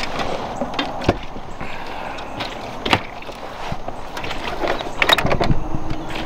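Scattered knocks and clicks of fish and tackle being handled in an aluminum jon boat, over steady background noise. A steady low hum starts about five and a half seconds in.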